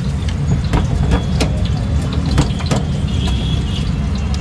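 Steady low rumble, likely street traffic or a burner, with scattered sharp clicks and taps from poori dough rounds being laid on a steel counter.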